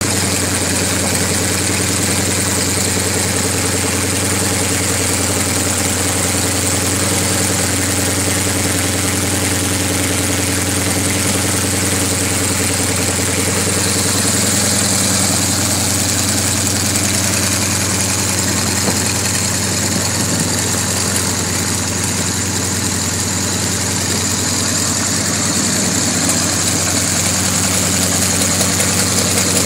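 Yak-55M's nine-cylinder M-14P radial engine idling steadily, with the three-blade propeller turning.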